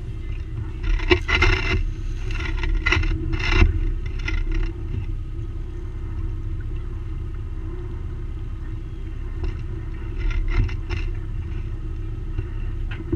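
Small fishing boat's engine running with a steady low rumble, under bursts of scraping and clattering as rope and gear are worked over the side, starting about a second in and again around ten seconds.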